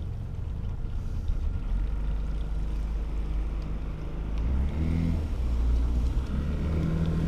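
Small motorboat's outboard motor running at low speed with its revs stepping up and down, pushing the boat up onto its trailer.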